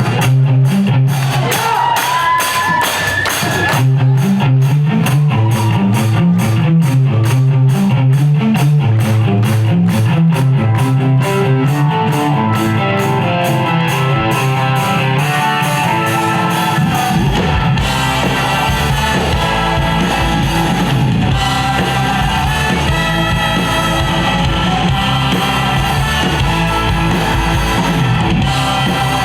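Live rock band playing an instrumental passage with guitar and drums. A fast, even beat drives the first half, and the low end grows fuller about seventeen seconds in.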